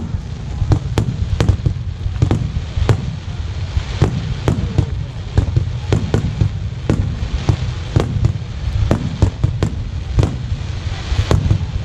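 Fireworks display: a rapid, irregular barrage of aerial shell bursts going off several times a second over a continuous low rumble.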